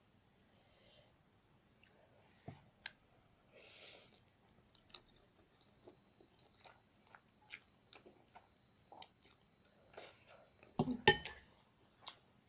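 A person eating spicy instant noodles, with slurping and chewing and many small wet mouth clicks. A louder knock and clatter comes about eleven seconds in.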